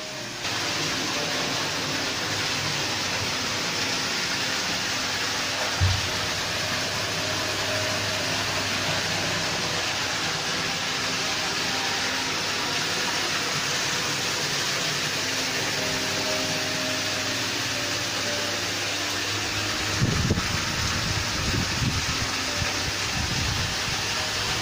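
Steady rushing of a water curtain pouring from a garden waterfall into a pond, heard from inside the rock grotto behind it. A low bump comes about six seconds in and a few more around twenty seconds in.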